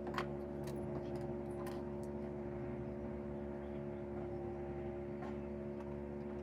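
A steady hum at several fixed pitches, with a few faint light clicks.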